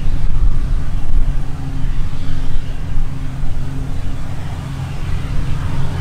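Claas Lexion 8900 combine harvester working in standing grain: its engine runs at a steady, heavy low drone under a continuous rushing noise from the machine.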